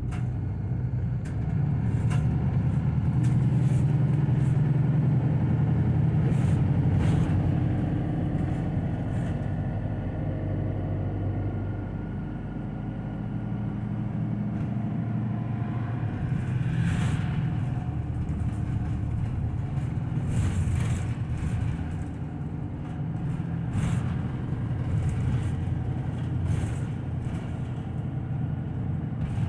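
City route bus heard from inside the passenger cabin: engine and road noise as it drives along, growing louder about two seconds in as it picks up speed, then easing off, with occasional short rattles.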